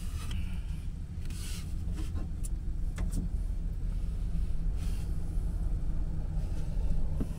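Steady low rumble, with a few faint rustles and light knocks as hands shift a wooden shelf board.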